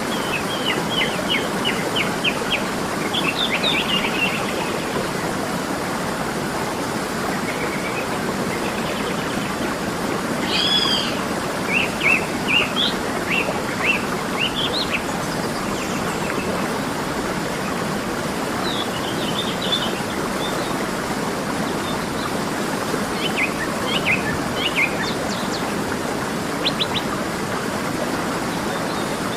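Steady rush of a waterfall, with birds chirping over it in short quick runs several times: near the start, around the middle and toward the end.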